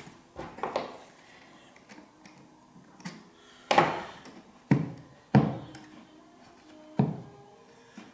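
About five sharp wooden knocks and taps, with short quiet gaps between them, from hands working pulldown wires into the pallets of a pipe organ soundboard.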